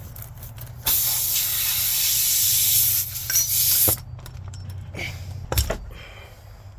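Air hissing loudly out of a punctured tyre for about three seconds, starting and stopping sharply, followed by a few short knocks and clicks.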